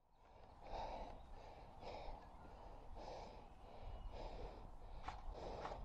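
A person breathing hard, about one breath a second, close to the microphone. Two faint sharp clicks come near the end.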